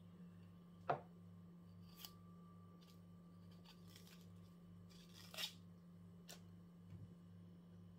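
A knife peeling the papery skin off a red onion by hand: short faint scratches, tears and clicks, the sharpest click about a second in and a longer scratchy rustle a little past the middle, over a steady low hum.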